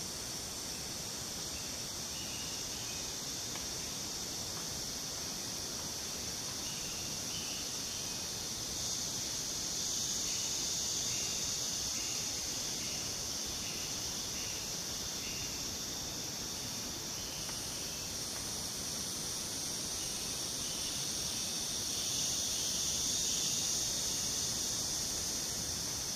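Rainforest insect chorus: a steady, high-pitched shrill buzz that swells twice, with a run of short repeated chirps pitched lower beneath it.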